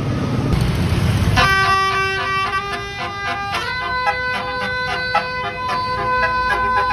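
A bus's Basuri 'telolet' horn playing a multi-note tune, cutting in about a second and a half in over a low engine rumble. The chord of notes changes partway through and then pulses in a quick rhythm.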